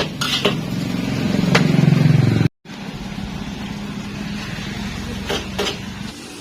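An engine running close by with a steady low drone that grows louder, cut off abruptly about two and a half seconds in; after the cut a quieter steady engine hum continues, with a couple of short knocks near the end.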